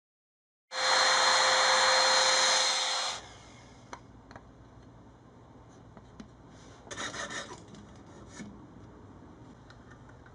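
A loud, steady power tool runs in a woodworking shop for about two and a half seconds and cuts off abruptly. After that there is a faint low hum, with small handling clicks and a brief scratchy rubbing on wood midway.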